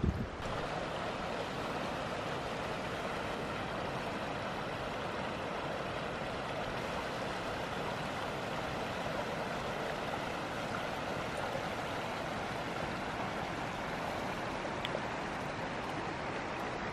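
Shallow mountain stream running over rock ledges and small cascades: a steady, even rush of water.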